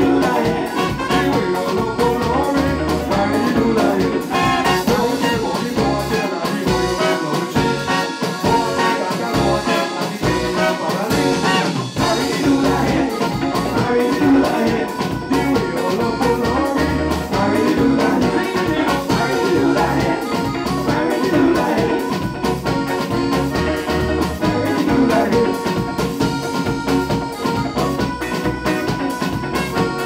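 A live band playing an upbeat song: drum kit keeping a steady beat under bass and electric guitar, with singers on microphones. The bass drops out for a few seconds about a third of the way in and comes back on a sharp hit.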